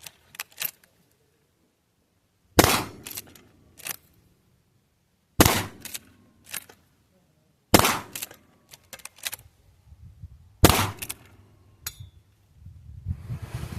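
GForce Arms LVR410 lever-action .410 shotgun firing four shots, one about every two and a half to three seconds, each followed by a few quick clicks as the lever is worked to chamber the next shell. Low handling noise follows the last shot.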